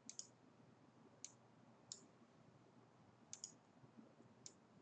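Faint computer mouse clicks, about eight short sparse clicks with a couple in quick pairs, over near silence.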